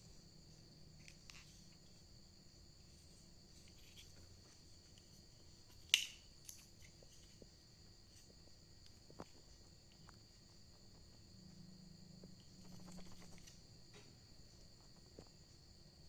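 Quiet handling of a plastic SATA-to-USB adapter and its cable: faint clicks and rustles, with one sharp click about six seconds in and a smaller one about three seconds later, over a faint steady high-pitched whine.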